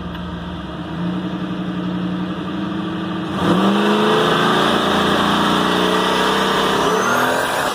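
LS1 V8 running at idle, then revved up sharply about three and a half seconds in, held at higher revs for a few seconds and let back down to idle near the end.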